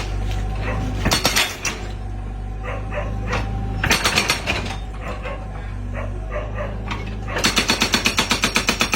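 Excavator diesel engine running steadily, with a few short sharp bursts over it; about three-quarters of the way through its hydraulic rock breaker starts hammering in a fast, even rhythm of roughly six to seven blows a second.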